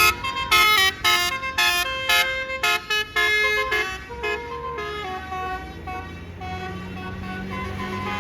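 A bus's basuri telolet air horn plays a quick melody of short, stepping notes, loudest in the first four seconds. After that it fades to a few fainter notes over a steady low hum.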